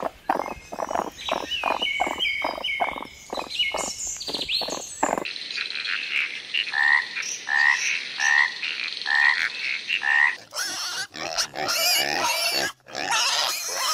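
Animal calls: about five seconds of quick, evenly repeated croaking pulses, then five evenly spaced calls about a second apart over a steady high hiss, then a rougher, noisier stretch near the end.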